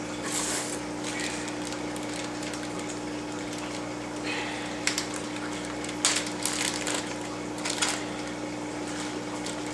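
Plastic shipping bags crinkling and rustling in several short spells as they are handled, over a steady low hum.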